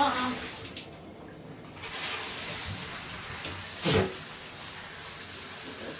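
Handheld shower sprayer spraying water onto a dog in a bathtub: a steady hiss that comes on about two seconds in, after a short lull. A brief knock sounds about four seconds in.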